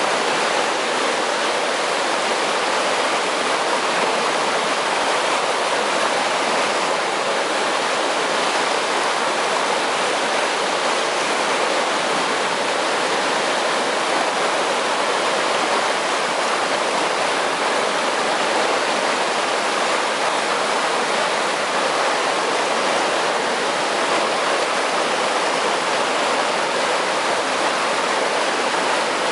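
Water rushing steadily through an irrigation canal at the inlet to an aqueduct, a constant, even flowing roar.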